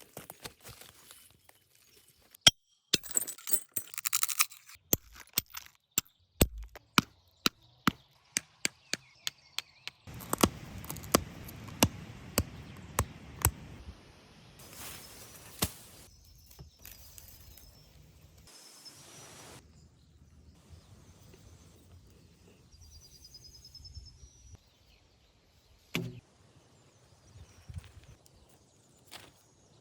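Glass being knapped into an arrowhead: a run of sharp clicks and ticks, about one or two a second, with stretches of scratchy scraping noise. The clicks stop about halfway through, and a few quieter knocks and a short chirp follow.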